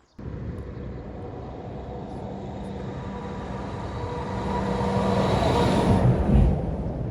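A vehicle going past, its running noise growing louder to a peak about six seconds in and then easing off.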